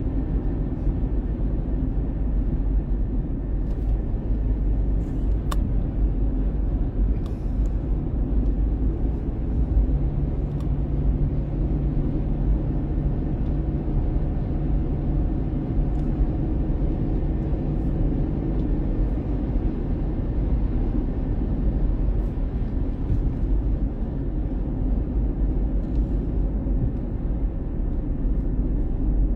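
Car driving along a road, heard from inside the cabin: a steady low rumble of tyres and engine, with a faint low hum joining for several seconds in the middle.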